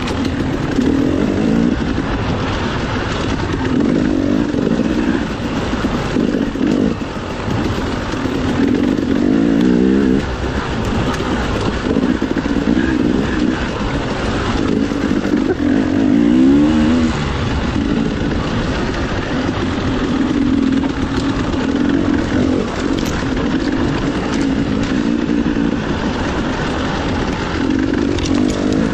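Dirt bike engine revving up and backing off over and over while riding, with two quick rising surges of revs, about ten and sixteen seconds in.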